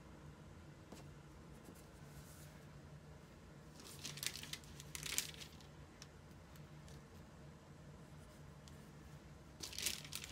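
Faint crinkling of a wax-paper sticker sheet and stickers being handled, in two short bursts, one about four seconds in and one near the end, over a low steady hum.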